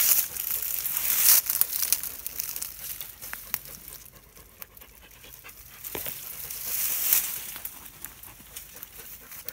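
Fan-palm fronds and brush rustling and crackling as they are pushed aside and trampled in dense scrub, loudest in the first couple of seconds and again about seven seconds in, with a few sharp snaps of twigs.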